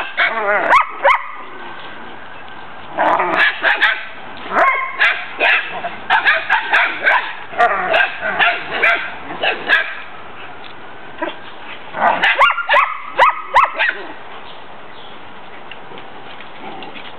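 Collies barking and yipping in quick, pitched bursts during rough play: a brief flurry at the start, a long run of barks over several seconds, then another short flurry, with quiet stretches between.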